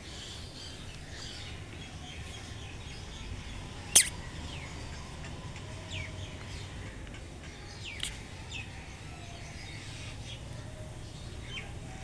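Small birds chirping, with short high falling calls scattered throughout over a low steady background hum. Two sharp clicks stand out, a loud one about four seconds in and a softer one about four seconds later.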